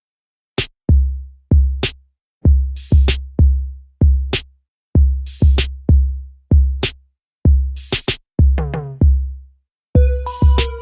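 Electronic background music: a drum-machine beat of deep booming kicks and snare hits, with a short riser near the end of the beat section and a synth melody coming in about ten seconds in.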